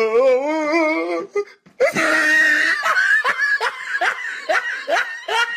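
A man laughing hysterically: a long wavering laugh, a brief break, then a shrill strained laugh that breaks into rapid cackles about three a second.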